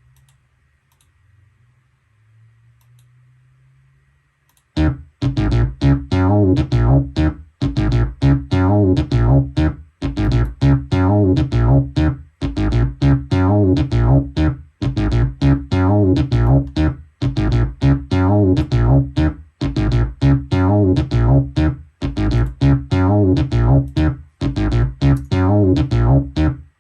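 Korg Minilogue analog synthesizer playing a bass-heavy patch: quick, short repeated notes in a looping phrase that restarts about every two and a half seconds. It comes in loud about five seconds in, after a faint low held tone.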